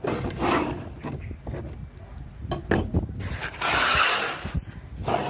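Knocks, clicks and a long scraping rasp from the parts of a household electric water pump being handled and fitted back together; the rasp comes about three and a half seconds in and is the loudest sound.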